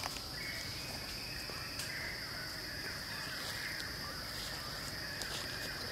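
Steady high-pitched drone of forest insects, joined just after the start by a lower insect buzz that runs until near the end, with a few faint ticks.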